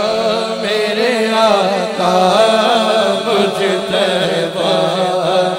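A man singing a naat, an Urdu devotional poem, into an amplified microphone, with long, wavering sung phrases over a steady low held tone.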